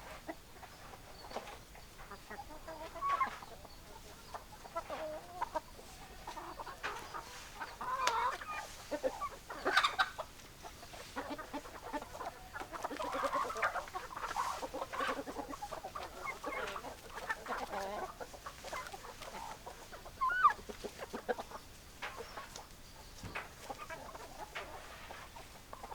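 Hens clucking, several birds calling over one another in short, irregular clucks, busiest around the middle.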